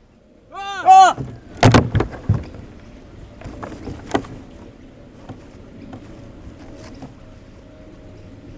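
A wooden door being swung on its hinges: two short squeaks, then a quick run of heavy knocks and bangs, with one more bang about four seconds in.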